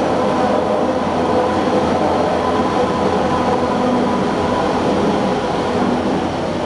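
Interior running noise of a TTC ICTS Mark I rapid-transit car, driven by linear induction motors: a steady, even rumble of the car on its track with a few steady hum tones laid over it.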